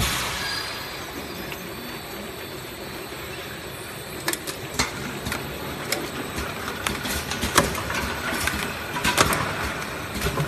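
Automatic piston filling and screw capping machine for engine oil bottles running, a steady mechanical hum joined from about four seconds in by irregular sharp clicks and knocks that grow more frequent toward the end.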